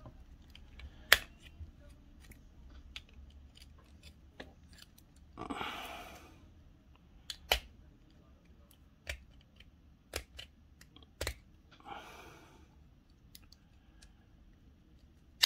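Small parts of a diecast toy car being handled on a work surface: a handful of sharp, separate clicks and taps, with two short swishes about five and twelve seconds in.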